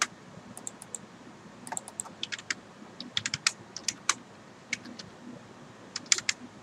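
Computer keyboard being typed on: sharp keystrokes coming in small irregular groups, as a number is entered at a command prompt.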